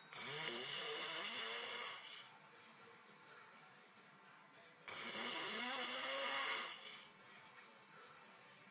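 A person snoring: two long snores of about two seconds each, roughly five seconds apart, with quiet between.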